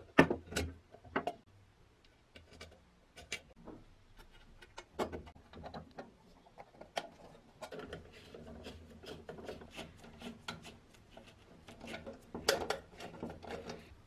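Handling knocks as the coffee grinder's metal-and-wood box body is turned over and set down on a wooden bench, the loudest just after the start, then a long run of small clicks and scraping as a screwdriver turns small screws into the wooden end panel, with another cluster of knocks near the end.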